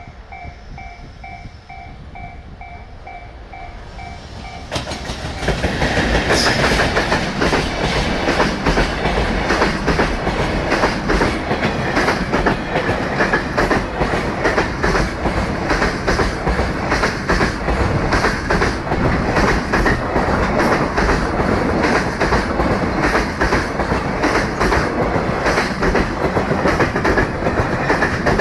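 A level-crossing alarm bell rings in a fast, even two-tone pulse. About five seconds in, an EF210 electric locomotive hauling a long train of container wagons passes close by, and its loud, steady rumble of wheels on rail and rapid clickety-clack over the rail joints drowns the bell.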